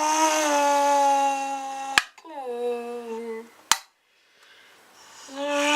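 A person's voice droned into an empty drink can to imitate a car engine: a steady buzzing tone, a sharp click about two seconds in followed by a falling tone, another click and a short pause, then a rising tone near the end.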